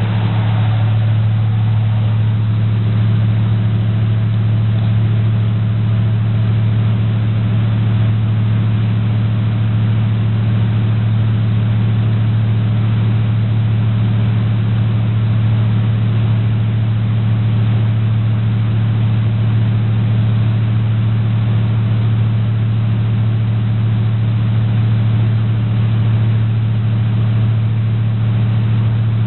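1984 GMC Camper Special's engine idling steadily through Dynomax Turbo mufflers on a dual exhaust with an H-pipe, warming up after a cold start.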